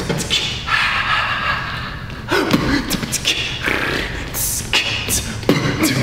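A man beatboxing: a string of sharp mouth-made drum hits mixed with hissing cymbal-like sounds.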